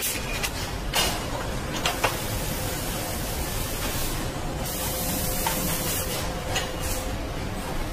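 Car assembly line noise: a steady machinery hum and hiss with a faint steady tone, sharp clicks about one and two seconds in, and a burst of high air-like hiss lasting about a second and a half in the middle.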